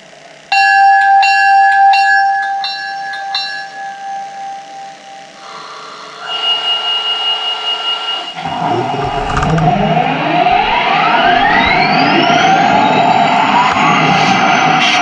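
Sound decoder of a model SD40-2 diesel locomotive playing its effects through a small speaker: the locomotive bell ringing about twice a second, then the prime mover starting up, its rumble rising with a climbing turbo whine that levels off high and holds.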